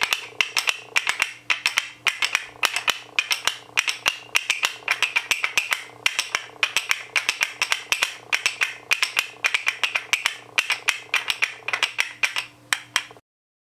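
Wooden zills (finger cymbals) clacking together in a fast, repeating rhythmic pattern of several dry, castanet-like clicks a second, stopping just before the end.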